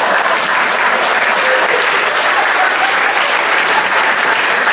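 Audience applauding a punchline, dense and steady clapping throughout.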